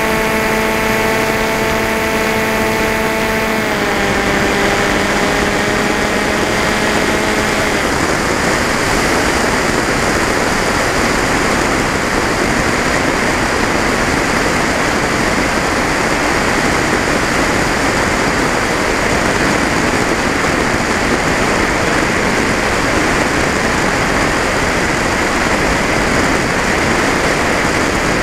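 An FPV model plane's motor and propeller whine steadily, drop slightly in pitch about four seconds in and fade out by about eight seconds, as the throttle is eased off. After that only a steady rush of wind over the onboard camera is heard as the plane glides.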